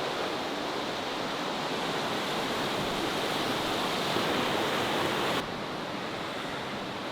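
Rushing river water, a steady noisy hiss; about five seconds in it drops abruptly to a slightly quieter level.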